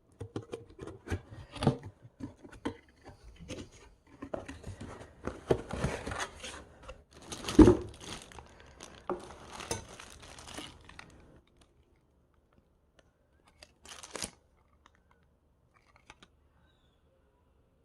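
Packaging being unwrapped: paper and cardboard torn and crumpled, with scattered knocks and rustling. It dies away about eleven seconds in, and one short rustle follows a few seconds later.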